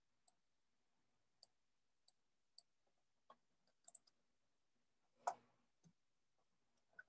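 Faint, scattered computer mouse clicks at irregular intervals, with one louder knock about five seconds in.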